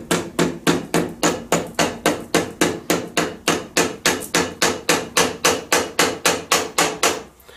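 Rapid, even, light hammer taps on steel, about four or five a second, stopping shortly before the end. A woodworking hammer is tapping a split pin's tang down over the wheel-bearing nut to lock it in place.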